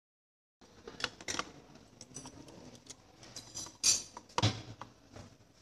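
Motorcycle clutch plates and pressure plate clinking and clicking as they are handled and worked loose from the clutch basket during disassembly, with two louder metal knocks around four seconds in.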